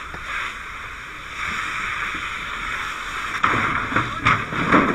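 Steady rushing hiss of water from a fire hose stream. In the last second and a half it grows louder, with splashing and knocks.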